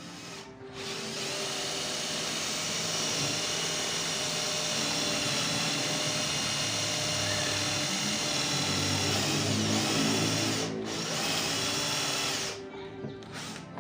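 Electric drill running steadily with a high whine while boring into plywood. It cuts out for a moment near the end, runs again briefly, then stops.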